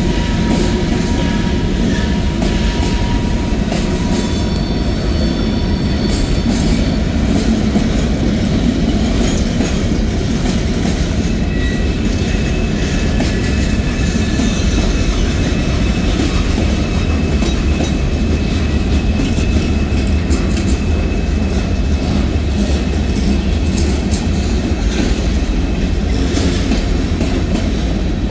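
Freight cars of a CSX mixed manifest train rolling past: a steady, loud rumble of steel wheels on the rails, with a few thin, high wheel squeals coming and going.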